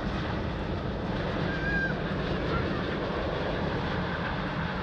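Jet airliner engines at takeoff power, a steady heavy rumble of an aircraft taking off.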